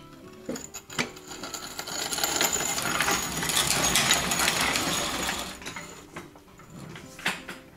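A couple of sharp metal clinks, then a few seconds of metallic rattling and scraping that swells and dies away, as the old steel exhaust section comes off the jack pad and is moved out from under the car.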